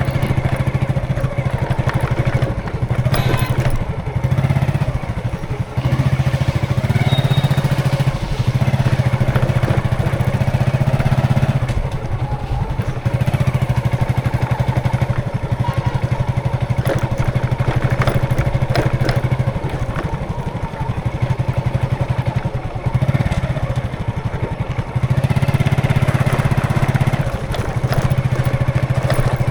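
Road traffic with a vehicle engine running close by at a steady pitch, fading briefly several times as vehicles come and go, over a constant wash of road noise.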